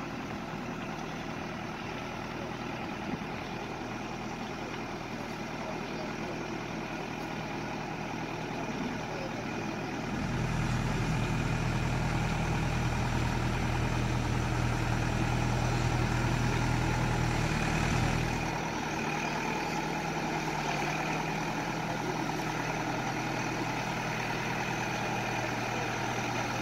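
Diesel engine of a mobile boat travel hoist running steadily as it carries and lowers a boat in its slings. It rises to a heavier, louder drone about ten seconds in and drops back about eight seconds later.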